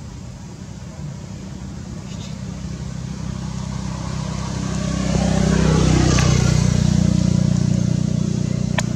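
A motor vehicle's engine passing by, a low hum that grows louder to a peak about six seconds in and then slowly fades. A single sharp click near the end.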